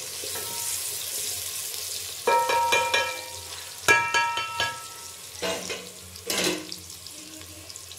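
Sliced onions sizzling in hot ghee with cumin seeds in an aluminium pot, stirred with a spoon. The spoon knocks against the pot twice, about two and four seconds in, and the pot rings briefly each time.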